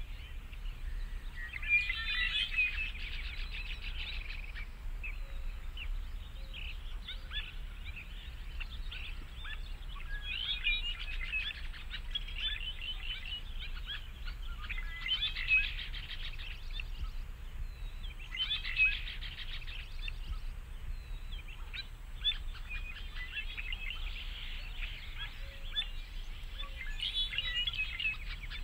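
Wild birds chirping and singing in repeated bursts every few seconds, over a low steady background rumble.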